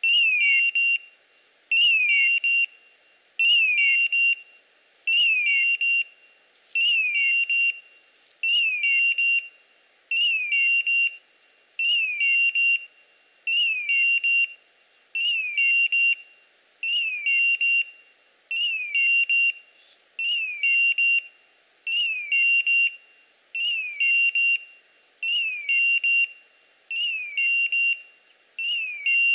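Hunting dog's beeper collar sounding in point mode: a short falling chirp running into a held beep, repeated evenly about every second and a half. The signal that the English setter is standing still on point.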